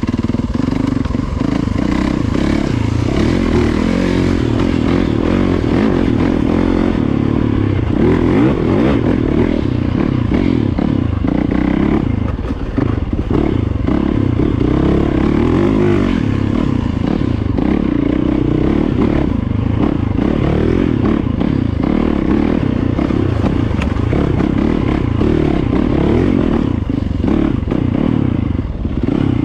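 Dirt bike engine running under load on a trail, heard close from the rider's own Yamaha, its pitch rising and falling with the throttle.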